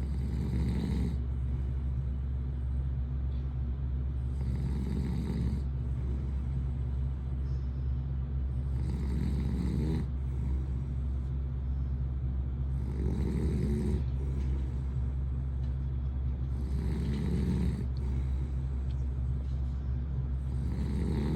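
A man snoring in deep sleep, one snore about every four seconds, six in all, over a steady low hum.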